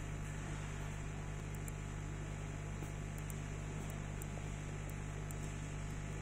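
Steady low electrical hum with a constant even hiss from running machinery, unchanging throughout, with a few faint high ticks.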